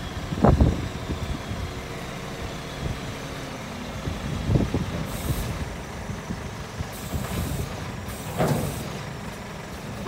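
Scania G490 truck's 13-litre inline-six diesel running steadily, with a faint steady whine, while working the Joab hooklift. Three short air hisses near the middle and end, and a few dull knocks.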